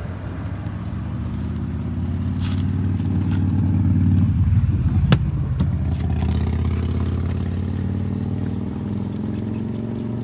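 A road vehicle passing close by: engine and tyre noise swells to a peak about halfway through, then fades away. A single sharp click about five seconds in.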